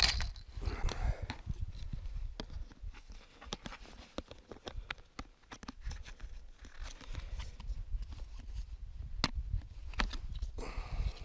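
Plastic winter tip-ups being handled: rustling of a fabric bag, with scattered sharp clicks and knocks of the plastic parts as one is taken out and unfolded. Wind buffets the microphone.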